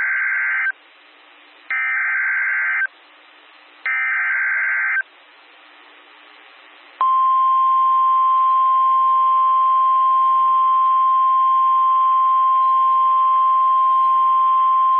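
Emergency Alert System SAME header from NOAA Weather Radio: three harsh, buzzing digital data bursts about a second long with short pauses between them, encoding a severe thunderstorm warning. About seven seconds in, the steady single-pitch 1050 Hz weather radio warning alarm tone begins and holds.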